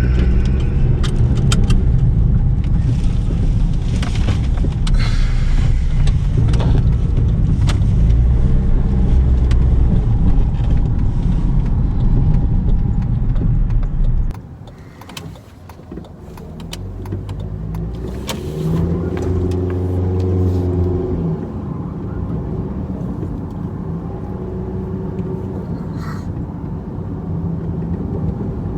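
A 2007 Jeep Compass's four-cylinder engine and road noise, heard from inside the car, with scattered clicks and rattles. About halfway through the level drops suddenly. A quieter engine note then rises for a few seconds as the car picks up speed, and settles to a steady run.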